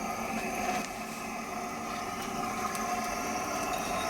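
Waste oil burner running steadily just after lighting, its flame blown by compressed air fed from a regulator: an even rushing noise with a faint steady hum.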